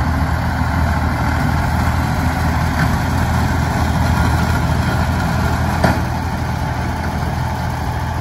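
Ford 4110 tractor's three-cylinder engine running steadily under load while it pulls and drives a New Holland 489 haybine mowing hay. A sharp click comes about six seconds in.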